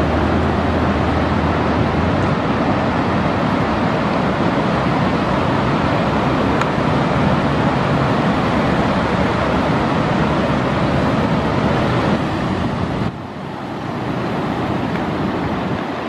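Steady rushing roar of ocean surf breaking, mixed with wind on the microphone; the level drops suddenly about thirteen seconds in.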